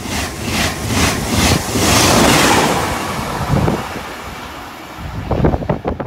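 A high-speed TGV passing at speed close by, its wheelsets beating in a quick even rhythm for the first two seconds, then a loud rush of air that fades as the train goes by. Wind gusts buffet the microphone near the end.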